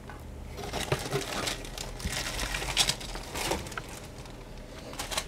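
A plastic bag and small cardboard cosmetic boxes being handled: rustling and crinkling with light taps, and a single sharp click near the end.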